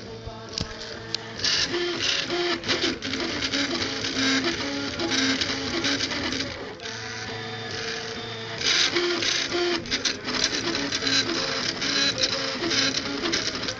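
Prusa Mendel RepRap 3D printer printing a 20 mm test cube: its stepper motors whine in tones that jump in pitch as the extruder carriage and bed change direction, over a steady hum, with bursts of fast rattling clicks from the moving axes.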